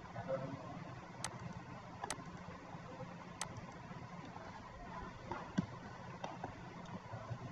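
Computer mouse clicking: three sharp clicks in the first half, then a few fainter clicks later, over a steady low background hum.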